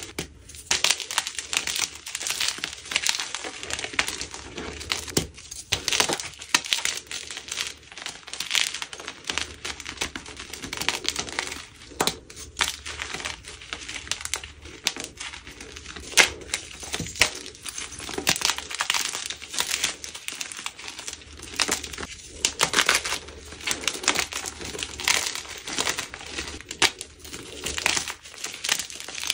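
Blocks of dyed gym chalk being crushed: a continual crunching and crumbling crackle, with a few louder snaps as pieces break.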